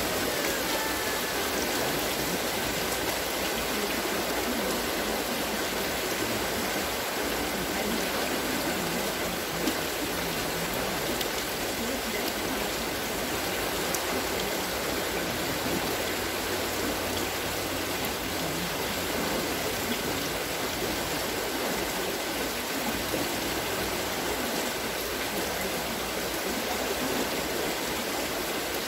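Water splashing and pouring steadily as a turning wooden water-scooping wheel (Wasserschöpfrad) lifts it in its buckets and lets it spill back down.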